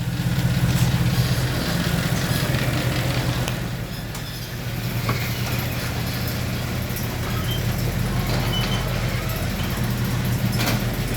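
Mercedes-AMG car engine idling steadily, with a slight dip and change in its note about four seconds in.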